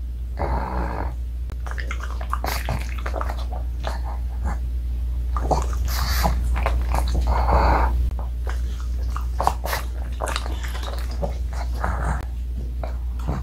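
A pug eating pieces of a homemade dog cookie by hand: irregular chewing and wet mouth clicks, with a few longer snorting breaths, over a steady low hum.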